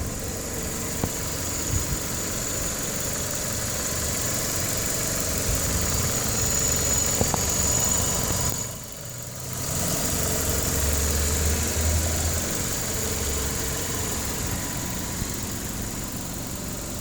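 1995 Geo Prizm's 1.8-litre four-cylinder engine idling, with a brief drop in sound about halfway through before it picks up again. The engine is one that starts hard and stalls, despite new plugs, wires and throttle position sensor.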